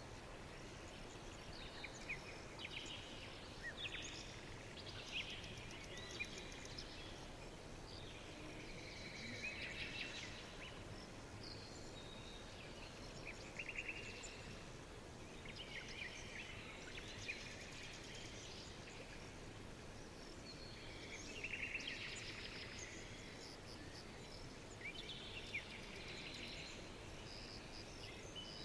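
Several songbirds chirping and trilling in repeated short phrases, over a steady soft background hiss.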